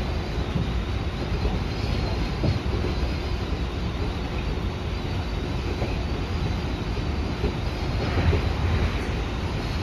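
Tobu 50000-series electric train running at speed, heard from inside the front car: a steady rumble of wheels on rail and running gear, a little louder about eight seconds in.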